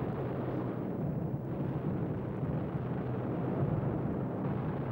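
Soundtrack rumble of a wartime bombing raid: a steady, dense low rumble with no distinct separate blasts, cutting off abruptly at the end.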